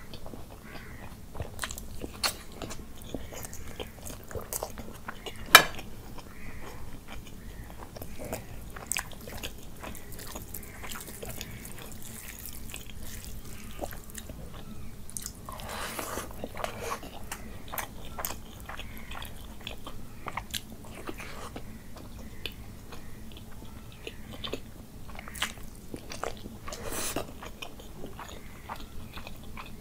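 Close-miked eating: a man chewing and biting mouthfuls of rice and curry, with many wet mouth clicks and smacks. The sharpest click comes about five and a half seconds in.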